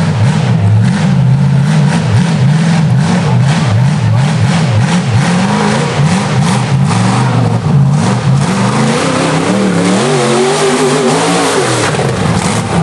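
Rock-bouncer buggy's engine revving hard, its pitch swinging up and down over and over as the throttle is worked, then climbing to higher revs a few seconds before the end.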